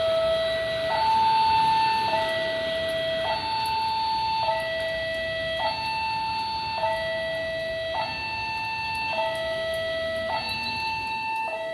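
Railway level-crossing alarm sounding as a train approaches: an electronic two-tone signal alternating high and low, each tone held a little over a second, over the steady hiss of heavy rain.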